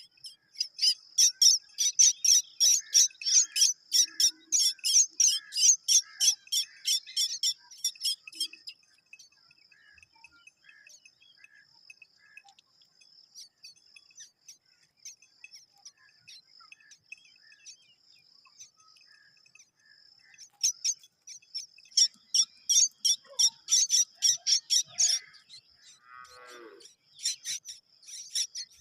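Myna chick's harsh, high-pitched begging calls, repeated rapidly at about three to four a second, in two long runs with a gap between, over a steady high insect trill.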